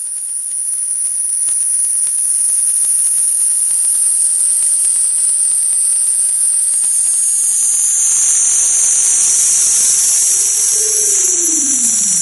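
Audio synthesized from a photograph imported into Adobe Audition as a bitmap, played back as a loud, steady hiss sitting mostly high in pitch. The hiss fills out lower after about seven seconds. Near the end a tone arches up and then sweeps steeply down.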